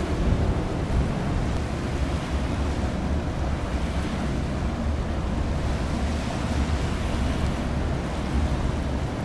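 Wind buffeting the microphone, with a steady wash of waves on choppy open water.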